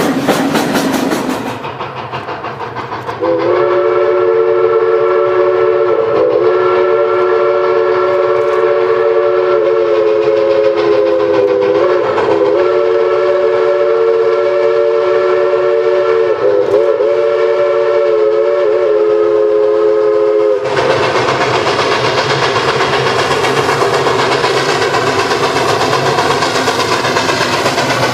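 Steam locomotive's chime whistle sounding one long held chord of several notes, wavering briefly a few times. About three-quarters of the way through it cuts off abruptly and gives way to the steady running noise of the train on the rails.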